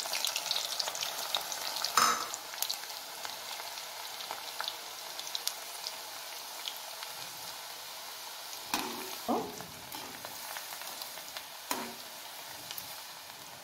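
Garlic cloves frying in hot sesame oil in a steel kadai: a steady sizzle with popping crackles that slowly dies down. A sharp knock comes about two seconds in, and a metal ladle scrapes against the pan a few times near the end as the garlic is stirred.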